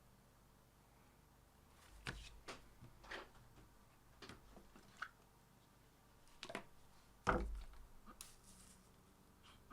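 Scattered light clicks and knocks of tools and small objects being handled on a workbench, with one louder, duller thump a little over seven seconds in.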